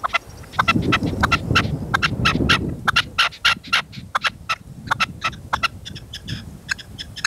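Red-legged partridges calling, the hen's curicheo: a rapid run of short, sharp notes that goes on throughout. Gusty wind rumbles on the microphone, strongest during the first three seconds.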